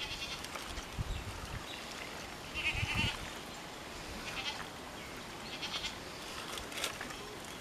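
Several short animal bleats, goat- or sheep-like, over soft wet squishing as hands knead small fish into spice paste in a steel bowl.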